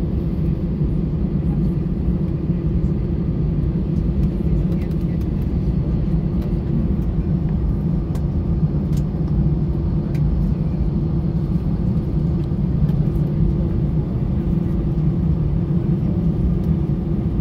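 Steady low rumble and hum inside the cabin of an Airbus A320 taxiing to the stand after landing, engines at idle.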